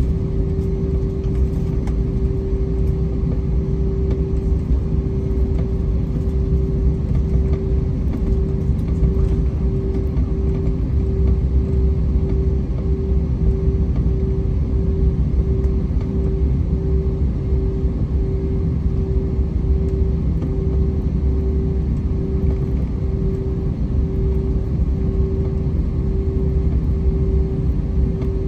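Jet airliner taxiing, heard inside the cabin: a steady low rumble of engines at taxi power and rolling gear, with a constant hum that throbs gently and regularly.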